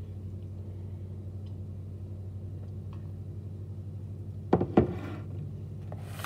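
A steady low hum, then about four and a half seconds in, two sharp knocks a fraction of a second apart, the second ringing briefly: a drinking glass being set down on a counter.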